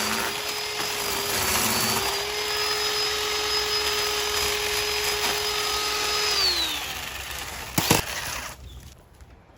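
Ryobi 18-volt battery mini chainsaw running at a steady whine as it cuts through wood, then released about six seconds in, its pitch gliding down as the motor and chain spin down. Two sharp knocks follow shortly after.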